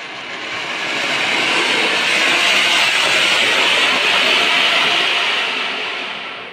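Ground fountain firework (a flower pot) spraying sparks with a loud, steady hiss that builds over the first second or two, holds, and fades away near the end as it burns out.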